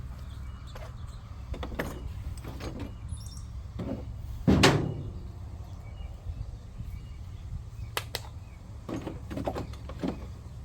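Scattered knocks and clicks of metal parts being handled on the excavator's pivot joint, with one loud clunk about halfway through, over a steady low rumble.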